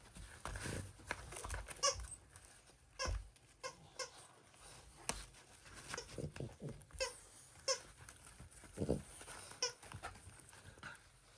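French bulldogs chewing a plush dog toy, its squeaker giving short squeaks every second or so, among knocks and rustling.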